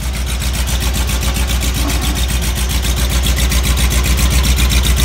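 Car engine idling steadily, heard from beneath the car beside the exhaust pipes, with the exhaust making an even, rapid low pulsing. The exhaust is leaking at a joint.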